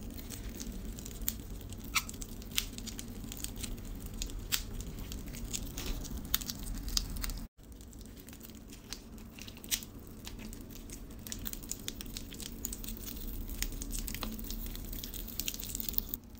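Thin plastic film peeled off a candy tray with crinkling and many small sharp crackles. After an abrupt cut about halfway, a plastic knife and fork cut into the gummy candy egg with soft squishes and light plastic clicks.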